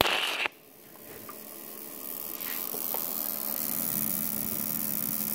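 Hitbox TIG200P TIG welder's high-frequency arc start firing from the torch as its trigger is squeezed with the tungsten held off the work: a loud half-second hissing burst that cuts off suddenly. A steady rushing noise then slowly builds.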